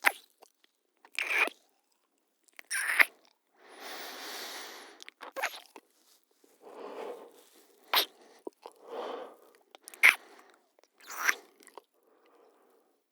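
A couple kissing: about seven wet lip smacks a second or two apart, with softer mouth and breathing sounds between them.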